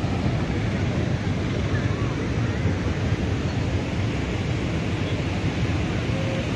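Steady roar of water rushing over an overflowing lake's spillway, an even rushing noise heaviest in the low end with no breaks.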